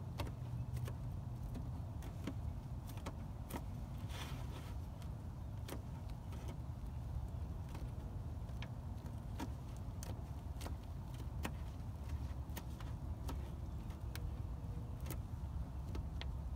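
Faint scattered clicks and crinkles of nitrile-gloved fingers pressing glue-soaked fiberglass cloth onto a car's wheel arch, over a steady low rumble.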